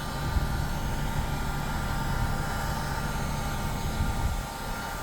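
Steady whir of a blower pushing air, with a faint motor tone, drying the freshly coloured vinyl seat.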